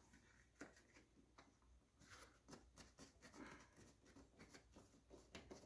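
Near silence, with faint scattered clicks and soft rubbing as vinyl trim is pushed into the door-post channel with a small tool and smoothed by hand.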